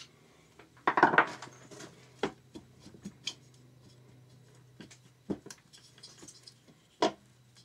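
Screwdriver prying the cylinder barrel of a Yamaha XT600 engine up off the crankcase: a loud burst of metal scraping and clatter about a second in, then a few separate metallic clicks and taps.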